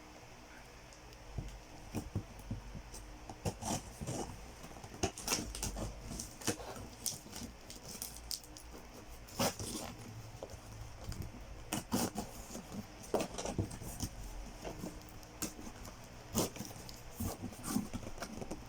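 Toy packaging and small plastic figures being handled and opened: a string of irregular light clicks, taps and crackles.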